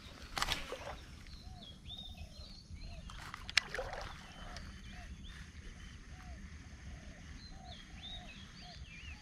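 Short, repeated chirping calls of wild animals, a couple each second, over a quiet outdoor background. A brief rush of noise comes just after the start, and a single sharp click about three and a half seconds in is the loudest moment.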